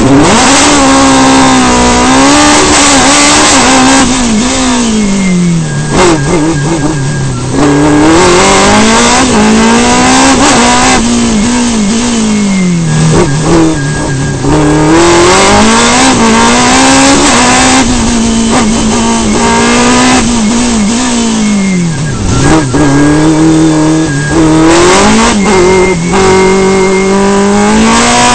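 Engine of an open-cockpit sport prototype race car heard from on board, running loud at full throttle, its pitch climbing through the gears and dropping away several times as the car slows for bends.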